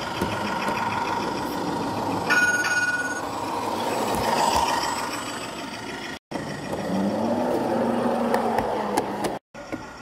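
Large-scale model tram running along the layout's track: a steady mechanical whine. A short, higher tone sounds about two seconds in, and the sound cuts out briefly twice.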